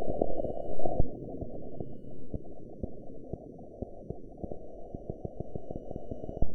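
Muffled low rumbling noise with scattered crackles and pops, everything above a low pitch cut away; it is loudest in the first second, then settles to a steadier rumble.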